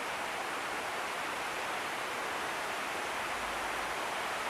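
Steady rain falling on a leafy woodland: an even, unbroken hiss.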